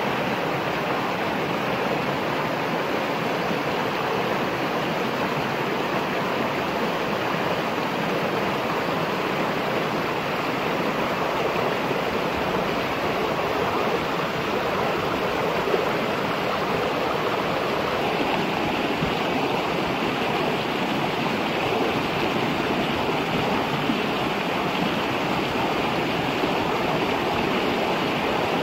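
A shallow rocky stream: water rushing and splashing over a small cascade between stone ledges, a steady, even rush.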